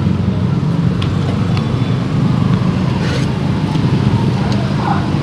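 Steady low rumble of road traffic going by.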